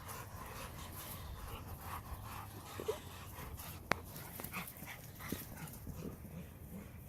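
A dog making a few short, faint sounds, with one sharp click about four seconds in.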